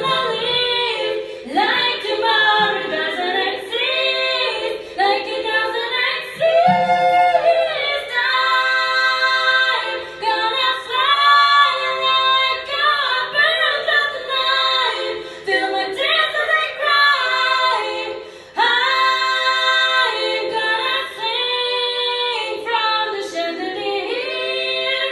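A group of voices singing a cappella without words, as vocal sound effects: held chords alternate with pitches that slide up and down, with a short break about eighteen seconds in.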